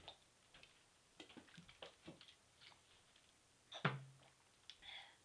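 Faint scattered light clicks and taps, with one sharper click about four seconds in followed by a brief low hum.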